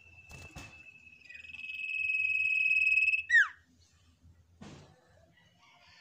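Common iora (sirtu, cipoh) singing one long steady whistle that grows louder and ends with a quick falling slur about three seconds in. Short knocks come just after the start and near five seconds.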